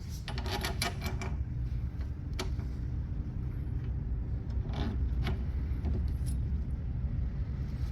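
Scattered light metallic clicks and taps of small hardware being handled while a mower's traction cable bracket bolt is refitted, over a steady low hum.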